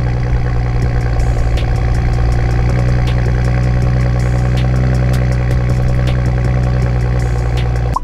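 Toyota GR Supra (A90) idling steadily through its stock exhaust in Sport mode with the exhaust valve open.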